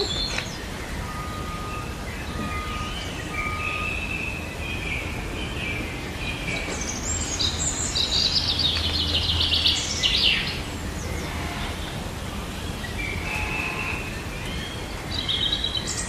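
Birds chirping and calling over a steady background hiss, with three short even whistles early on and bursts of rapid chirping in the middle and near the end.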